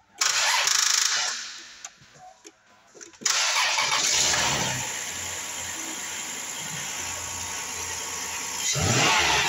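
2005 Chrysler Town & Country minivan's V6 starting: a short noise in the first second, a pause, then the engine catches about three seconds in and settles to a steady idle. It gets louder for a moment near the end.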